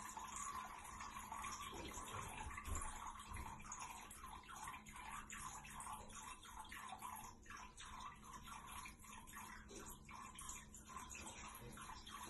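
A domestic cat peeing into a toilet bowl: a faint, steady trickle of urine splashing into the water.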